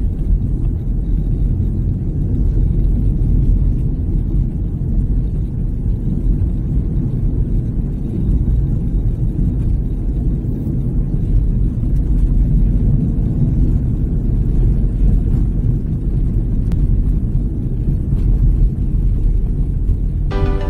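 Steady low rumble of a car driving along a road: engine and tyre noise, with no change in pace.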